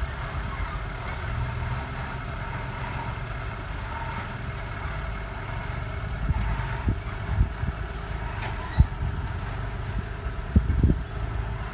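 A heavy machine's engine running steadily at low revs, with several dull knocks and thumps in the second half, the sharpest about three-quarters of the way through.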